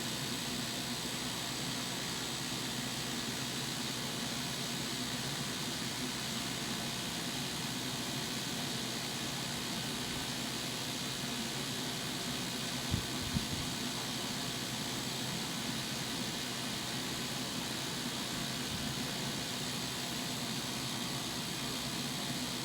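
Steady whirring hiss of a spinning LED fan display's blades and motor running. Two soft knocks about thirteen seconds in.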